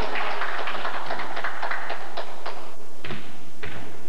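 Scattered hand-clapping from players and spectators in a gymnasium hall, followed by two single thuds about three seconds in.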